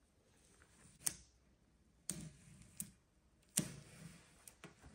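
About half a dozen faint, sharp ticks and taps with short rasping scrapes, from hands working decal transfer paper and masking tape while applying vinyl lettering to a tailgate panel.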